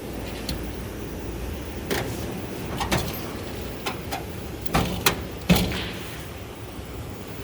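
Drawers of a Snap-on metal tool chest being slid and shut, giving several sharp clunks and knocks, the loudest a little past halfway.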